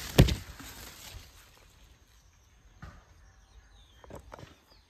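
Leaves and branches brushing and knocking against a handheld phone, with one sharp knock just after the start, then a few soft rustles or steps.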